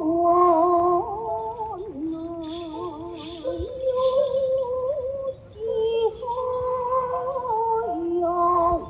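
Traditional Japanese music accompanying a maiko dance: a slow, held melody whose notes waver in pitch and change every second or two. About two and a half seconds in, a brief jingle of small bells rings out over it.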